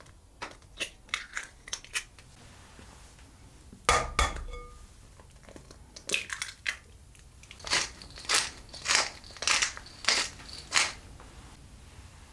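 An egg knocked once against the rim of a glass bowl with a short ring, and eggshell crackling as it is pulled open. Near the end, a pepper mill is ground in about six twists.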